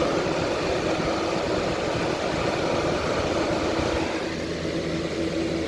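Outdoor air-conditioner condenser unit running: a steady compressor hum with the rush of its fan blowing hot air. A rougher low rumble eases off about four seconds in.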